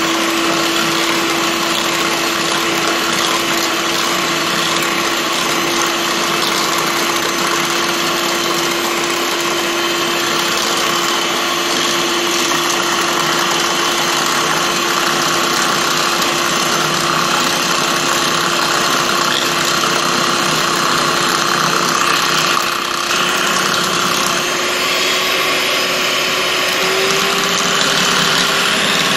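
Electric hand mixer running at one steady speed, its beaters whisking eggs and sugar into a foam; the motor's whine holds one pitch and rises slightly near the end.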